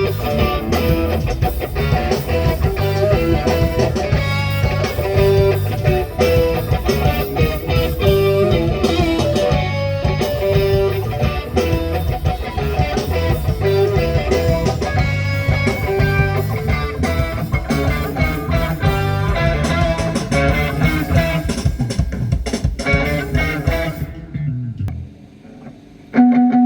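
Live band playing through a PA during a sound check: electric guitar and bass guitar, with drums. It stops about 25 seconds in.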